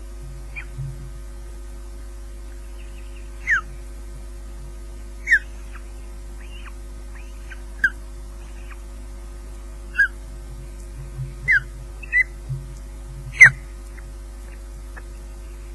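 Ospreys chirping at the nest during a feeding: short, thin calls that slide downward in pitch, about one every second or two, the loudest near the end. A steady low electrical hum runs underneath.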